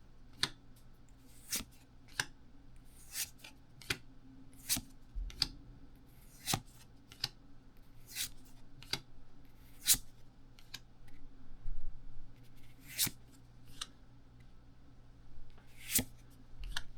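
Pokémon trading cards being handled one by one out of a freshly opened booster pack: irregular sharp snaps and flicks of card stock, about one every second or two, with a short rustling stretch about twelve seconds in.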